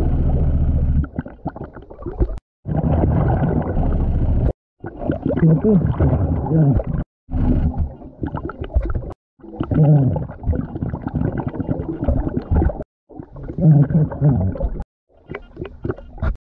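Underwater sound of a scuba diver breathing through a regulator, with rumbling, gurgling exhalation bubbles. The sound cuts off abruptly several times, between short edited clips.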